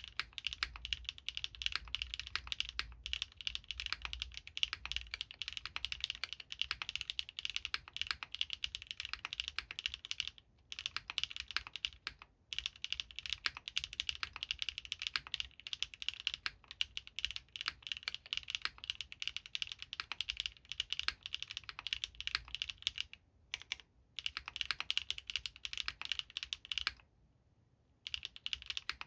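Continuous typing on a Geonworks Frog TKL 8K mechanical keyboard with Krytox 205g0-lubed Gateron RAW switches, GMK Pink on Navy keycaps and a stock aluminium plate over poron switch film. It gives a dense run of keystroke clacks, with a few brief gaps and one longer pause near the end.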